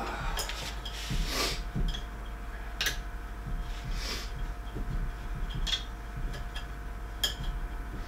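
Scattered light clicks and taps of small parts and tools being handled while assembling a 3D printer, with two longer rustling sounds, over a steady low hum.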